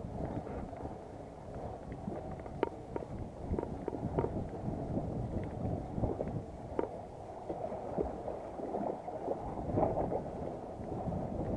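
Wind buffeting the action camera's microphone and sea water lapping around the boat, a steady low rumble dotted with scattered, irregular light clicks and taps.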